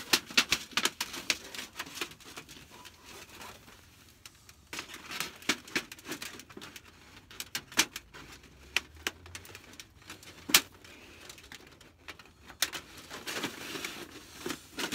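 Metal stovepipe and a perforated metal protector sleeve clinking, scraping and rattling as the sleeve is worked onto the pipe: clusters of sharp clicks with quieter gaps, and one loud clack about ten and a half seconds in.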